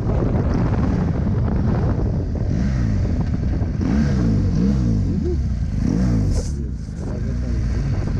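BMW R 1200 GS Adventure's boxer-twin engine heard from the saddle as the bike slows from speed, the engine note rising and falling several times as it changes down through the gears, with a brief drop in loudness near the end.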